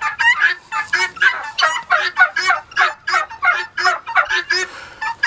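Guinea fowl calling in a harsh, rapid cackle that repeats about four times a second.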